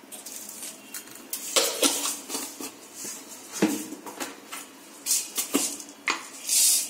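Mustard seeds sizzling in hot oil in a nonstick pan, with sharp pops and crackles at irregular moments, about one a second, as the seeds start to splutter.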